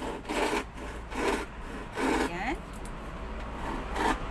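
Repeated rasping, scraping strokes, a few a second, dying down to a lull past the middle and starting again near the end.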